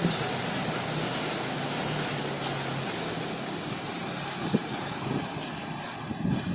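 Heavy rain and strong wind making a steady, even hiss. A low steady hum runs under it for the first half and fades out.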